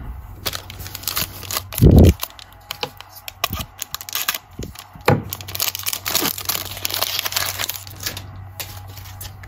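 A foil trading-card pack being torn open and crinkled by hand, with quick crackles and rustles that are thickest about six to eight seconds in. A single dull thump about two seconds in.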